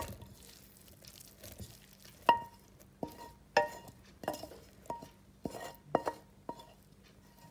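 A utensil knocking and scraping against a stainless-steel pan as softened leeks are pushed off into batter, about ten uneven knocks from about two seconds in, each leaving the pan ringing briefly on a clear metallic note.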